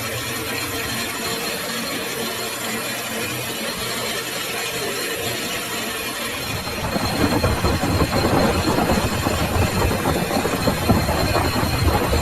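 Metal lathe running with a steady hum, then about seven seconds in a louder, rough, uneven cutting noise sets in as the tool bites into the steel shaft.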